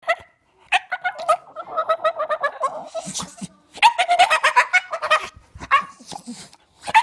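Staffordshire Bull Terrier making high-pitched, rapidly pulsing whining vocalizations in two main bouts with a shorter one after them, its way of asking to play.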